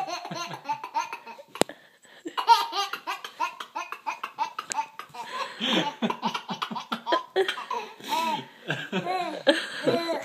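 Baby laughing hard in long runs of rapid, high-pitched laughs, with a short pause about two seconds in.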